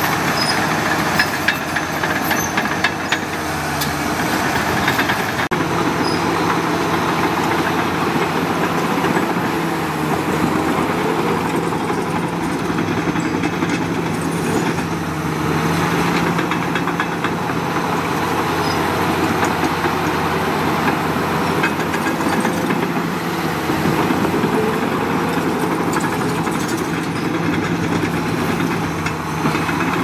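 Heavy diesel engine of earthmoving machinery running steadily, its pitch shifting slightly a couple of times.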